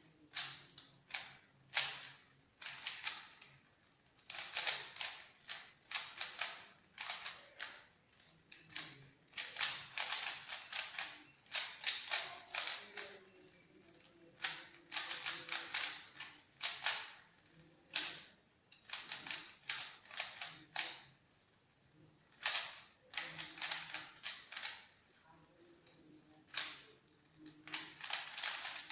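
Rubik's cube being turned quickly by hand, its layers clicking in rapid runs of turns broken by short pauses.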